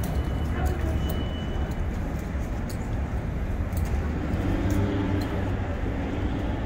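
Steady low rumble of a subway train running in the tunnel, heard from the station platform, with a few scattered clicks.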